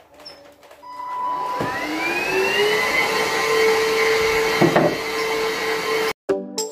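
Samsung cordless stick vacuum cleaner switched on, its motor spinning up with a rising whine and then running steadily while vacuuming. It cuts off suddenly near the end, where music starts.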